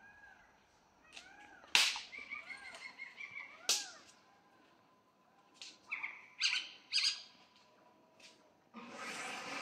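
Sharp snapping cracks from a wild Asian elephant moving along a fence: two loud ones, then a quick cluster, and a rustling burst near the end. Faint, evenly repeated chirping calls of night creatures run underneath.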